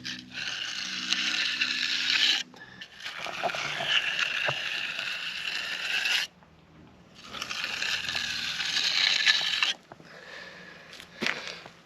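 Long scraping strokes of a tool working wet concrete, each lasting two to three seconds, with short pauses between them.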